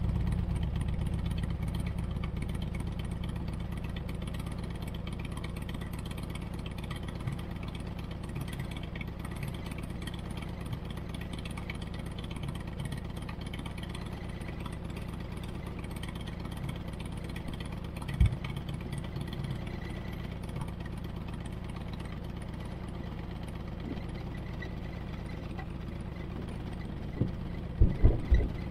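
2008 Harley-Davidson Road Glide's V-twin engine idling steadily. A single sharp thump comes about two-thirds of the way through, and a few more come near the end.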